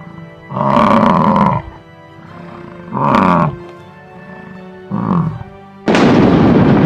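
A large wild animal roaring three times, the first call the longest and the last the shortest, over steady background music. Near the end a loud crash sets in and slowly fades.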